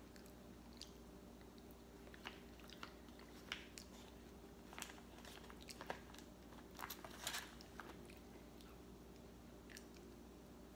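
Quiet eating of frozen durian: soft chewing and mouth clicks, with small scattered clicks of a fork against a plastic container.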